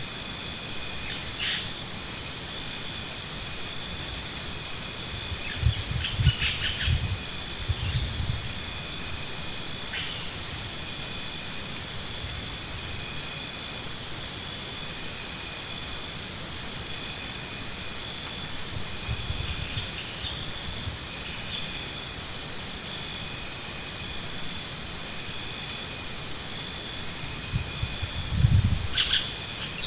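Steady high-pitched chirring like that of insects, swelling into louder pulsing trills that last a few seconds and recur throughout, with a few dull low thumps.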